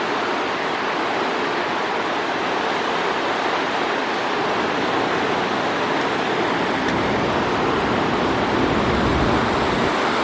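Steady rushing water, with a low rumble swelling in about two-thirds of the way through.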